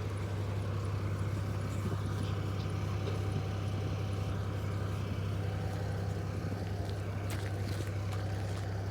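Concrete mixer truck running with a steady low hum, with a few faint clicks near the end.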